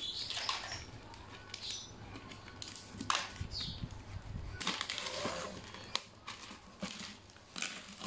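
Black plastic bag wrapping on a cardboard parcel crinkling and tearing as it is cut with a box cutter and pulled off the box, with a few sharp clicks along the way.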